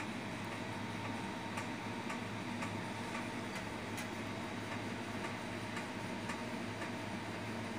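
Steady electric fan hum with faint, regular ticks about twice a second.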